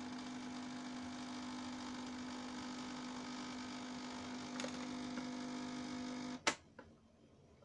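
Nescafé Dolce Gusto capsule machine's pump humming steadily as it forces water through a milk capsule, then cutting off suddenly about six and a half seconds in, followed by a sharp click.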